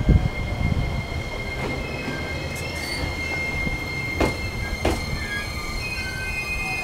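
JR Kyushu 815 series electric train rolling past at the platform: a steady low rumble of wheels on rail with thin high-pitched squealing over it. Two sharp clacks come about halfway through as the wheels cross rail joints.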